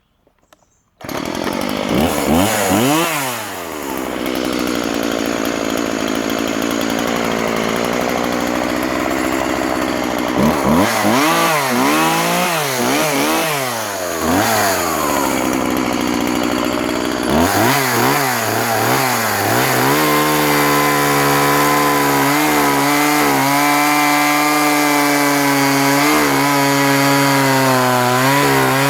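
Husqvarna 136 vintage chainsaw's 36cc two-stroke engine starting about a second in, then running with several blips of the throttle that send the pitch up and back down. In the last third it holds a steady high-speed run with slight dips.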